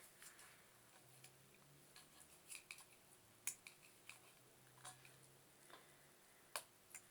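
Near silence with faint scattered clicks and small mouth noises of someone chewing egg white, with two sharper clicks about three and a half and six and a half seconds in.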